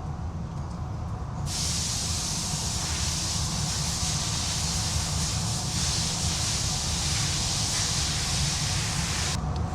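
A steady hiss of gas escaping from a nozzle. It starts suddenly about a second and a half in and cuts off just before the end.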